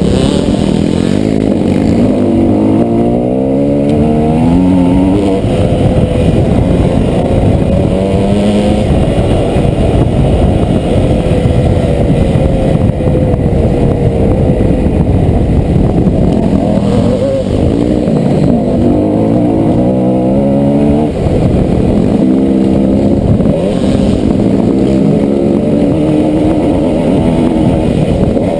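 Dirt bike engine heard close from the rider's helmet, its pitch climbing several times as it revs up and running steadier in between.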